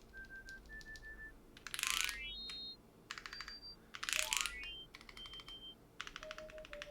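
Mechanical keyboard keys pressed in quick runs, with short electronic beeps from a key-tester program at each press. Twice a fast sweep across many keys gives a loud burst of clicks and a stepped, rising run of beeps.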